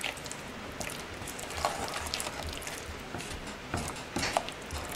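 Thick basil pesto being stirred and mashed with a spoon in a ceramic bowl: soft squishing with irregular light scrapes and taps of the utensil against the bowl.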